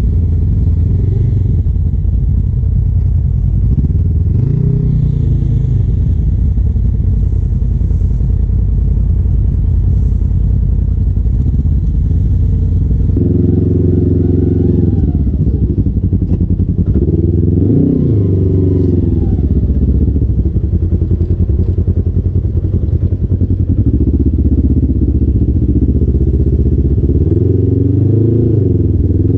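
Side-by-side UTV engine running at low speed, its pitch rising and falling in short revs several times in the second half as it crawls over rocks.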